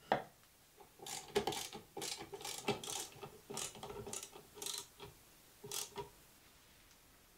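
A knock as a round cherry plate is set onto the table leg, then a screwdriver driving a wood screw through the plate into the leg: an uneven run of clicks with a gear-like whirr for about five seconds, stopping about six seconds in.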